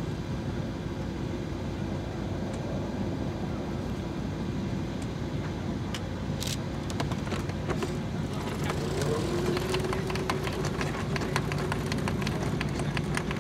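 Steady low engine rumble with a droning hum that shifts slightly in pitch about two-thirds of the way through; from about halfway, a scatter of short clicks and ticks joins it.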